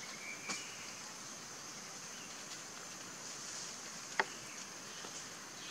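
Outdoor forest ambience with a steady high-pitched insect drone, broken by one sharp click about four seconds in.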